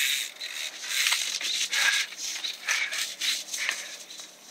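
Branches and twigs rustling and crunching against the camera as it is pushed through dense conifer undergrowth, in irregular bursts about once a second.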